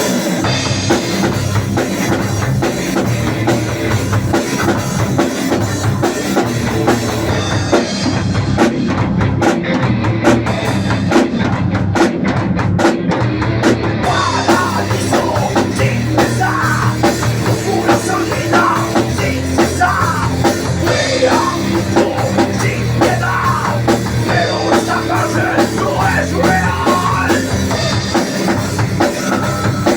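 Nu metal band rehearsal recorded on a mobile phone: distorted guitars, bass and a full drum kit playing loud and steady. The cymbal wash thins out for a few seconds about a third of the way in, then the full band returns.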